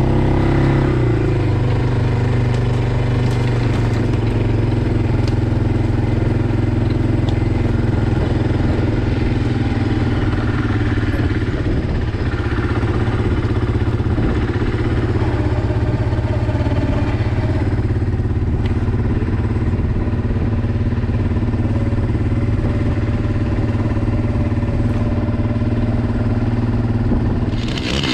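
A small petrol engine running steadily at an even speed. Near the end a louder, higher-pitched engine sound cuts in.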